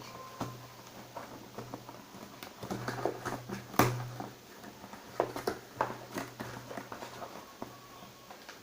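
A selfie stick's packaging being opened and handled: scattered clicks, taps and rustles, with one sharper knock about four seconds in, over a steady low hum.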